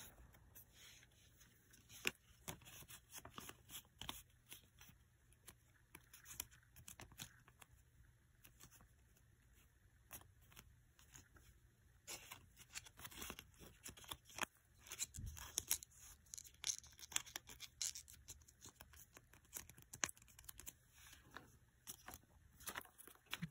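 Faint rustling and crinkling of paper cash envelopes and a paper banknote as they are flipped through and a bill is tucked into an envelope, in many small scrapes and ticks, busier in the second half.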